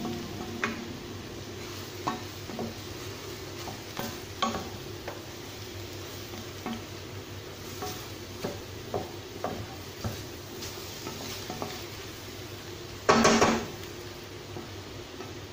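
Wooden spatula stirring bitter melon and scrambled egg in a metal pan over a light sizzle, with scattered taps and scrapes against the pan. One louder burst of noise lasting about half a second comes near the end.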